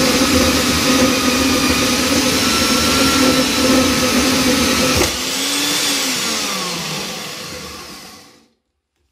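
Scheppach MSB1100 portable metal band saw's motor running at speed, then a click about five seconds in; its whine falls in pitch as the saw spins down and dies away.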